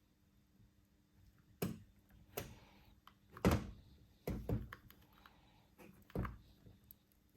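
A series of short, separate knocks and clunks, about six of them, the loudest about three and a half seconds in: brake caliper parts and tools being handled and set down on a workbench.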